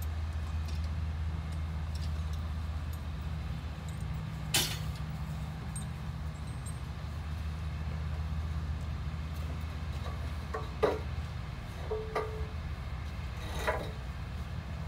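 Tractor engine idling steadily, a low hum. Over it come a few short knocks and clinks as equipment at the grave is handled, the loudest about eleven seconds in.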